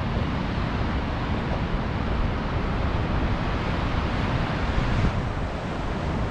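Steady wind buffeting the microphone, mixed with the rush of ocean surf breaking against the cliffs.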